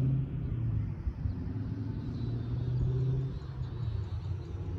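Engine running with a low, steady rumble.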